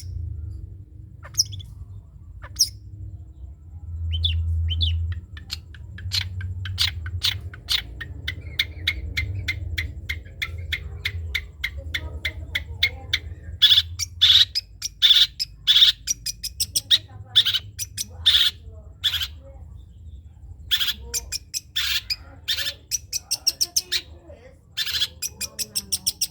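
Long-tailed shrike (cendet) singing in the rapid 'trotol' style: a few scattered sharp notes, then long runs of short, quick notes at about four to five a second, loudest around the middle and again near the end. A faint low hum runs underneath.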